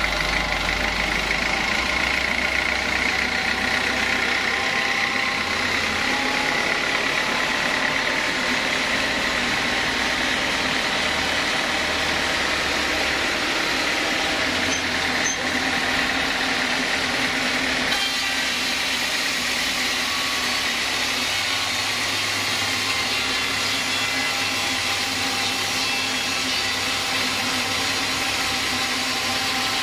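Band sawmill driven by an inline diesel engine, running steadily with a dense mechanical drone while a log is fed through the blade. The low tone shifts about two-thirds of the way through.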